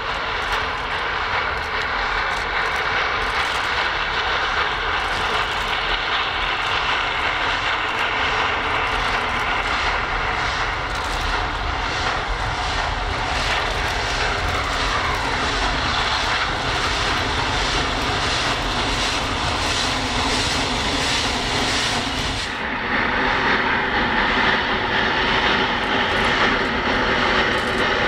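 HG/S class 2-8-0 superheated broad-gauge steam locomotive working hard, its exhaust beats running as a steady rhythm. It is louder and fuller near the end.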